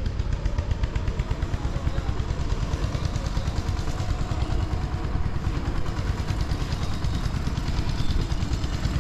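Steady low rumble with a rapid flutter in its loudness, typical of wind buffeting the microphone outdoors.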